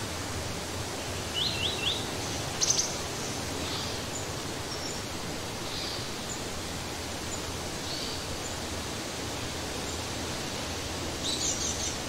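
Small songbirds chirping over a steady background hiss: three quick rising chirps about a second and a half in, a sharp high note just after, a few faint calls through the middle, and a cluster of high notes near the end.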